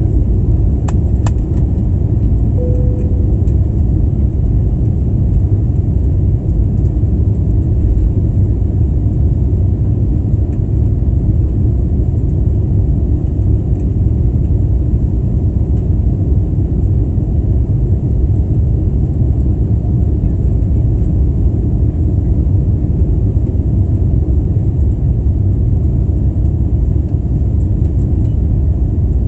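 Steady low rumble of airliner cabin noise: jet engines and airflow heard from inside the passenger cabin, with no change in pitch or level. A couple of faint clicks about a second in.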